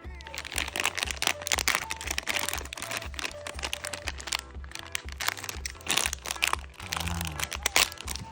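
Crinkling and crackling of a plastic-foil chip bag being handled, over background music with a steady beat.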